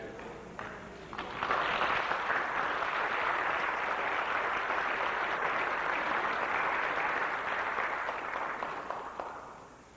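Congregation applauding: a few scattered claps, swelling to full applause about a second in, holding steady, and dying away near the end.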